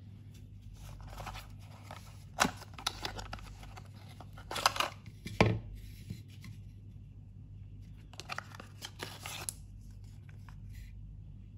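Cardboard box and clear plastic tray of an Arduino R4 WiFi board being handled and opened. Card and plastic rustle and slide, with several sharp clicks and taps; the loudest come about two and a half, four and a half and five and a half seconds in.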